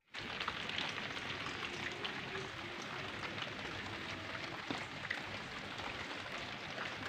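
Steady rain falling on a wet concrete rooftop, a dense patter of many small drop ticks.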